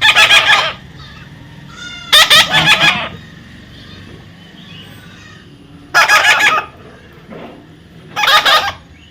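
Pet parrot giving four loud, harsh calls, each well under a second, spaced a few seconds apart.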